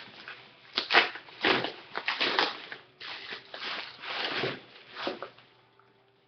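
Handling noise: a series of rustles and crinkles as plastic dish soap bottles and their packing are moved about, stopping about five seconds in.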